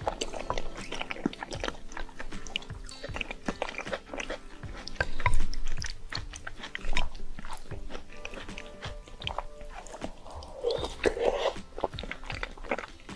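Close-miked chewing and biting of a mouthful of instant noodles and shrimp, with many short wet mouth clicks, over background music.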